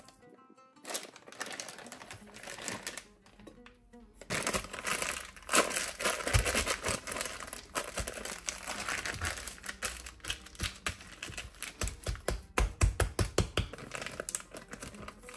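Clear plastic zip-top bag crinkling and crackling as it is packed with crumbly peanut dough and squeezed to push the air out, followed near the end by a quick run of clicks as the zipper is pressed shut.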